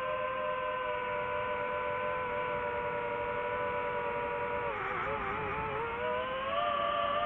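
DJI FPV drone's propellers whining in several close steady tones that drift slowly lower, dip and wobble about five seconds in, then climb in pitch near the end.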